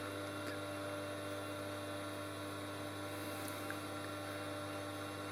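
Steady electrical mains hum, unchanging throughout, with a faint tick or two.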